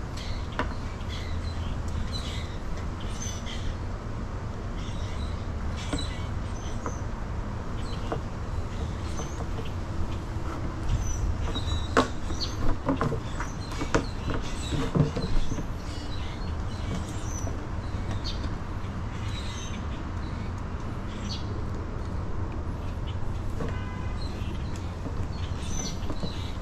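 Plastic zip ties being threaded through drilled holes in a plastic drum lid and pulled tight: scattered plastic clicks and handling knocks, a cluster of louder snaps a little before halfway, and a brief quick ratcheting rattle near the end. Underneath runs a steady low rumble.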